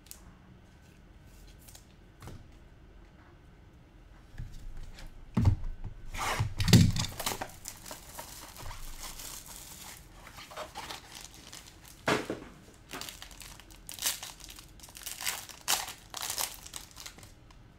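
A trading-card pack wrapper being torn open and crinkled, with two low knocks about five and a half and seven seconds in. Bursts of crinkling and handling clicks follow in the second half.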